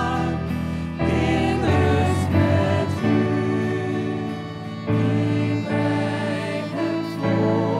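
Church worship band playing a song: several voices singing together in held notes over keyboard, acoustic guitar and violin, with the chords changing every two seconds or so.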